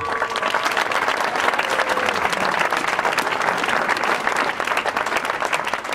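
Crowd applauding. The ring of a single stroke on a hanging bronze bell fades out under the clapping over the first two seconds.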